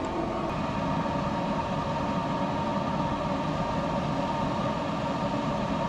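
Wood pellet smoker grill's fan running steadily just after switch-on in smoke mode, a constant hum with a thin steady whine over it. The fan blowing is the first check of the grill's initial firing, before the auger starts to turn.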